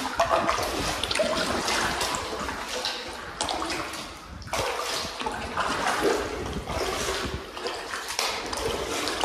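Water splashing and swirling around a canoe as a paddle is stroked through it, with a short lull a little over four seconds in.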